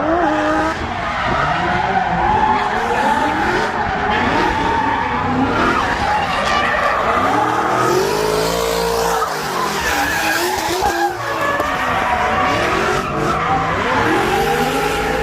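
A drift car's engine revving hard and dropping back over and over, while the rear tyres skid and squeal under wheelspin: a car being drifted.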